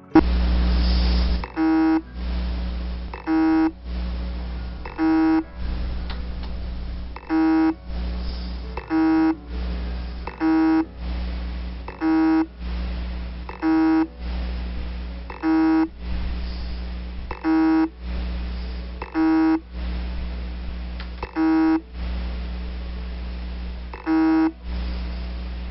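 Hard disk drive with its heads stuck on the platter and the spindle not rotating: a short beep comes about every one and a half to two seconds over a steady low hum. This repeated beeping is the sign of a head-stuck fault.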